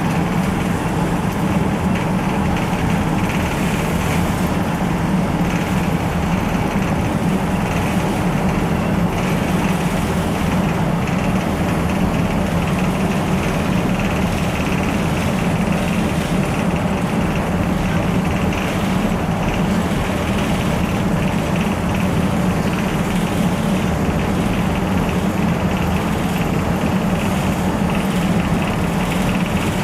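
Steady low rumble of a vehicle engine idling, unchanging throughout.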